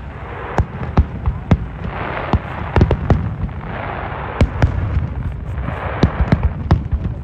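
Fireworks display: an irregular series of sharp bangs, about a dozen, over a steady background murmur.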